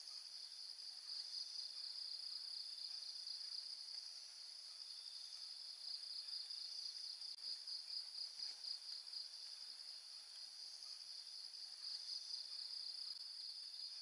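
Chorus of insects trilling steadily in a high, fast-pulsing band, swelling louder and easing off every few seconds.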